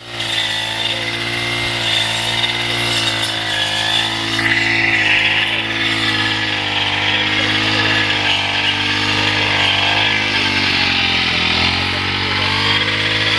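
Engine of a self-propelled grass-cutting machine running steadily, its pitch sagging briefly about ten seconds in and then picking back up.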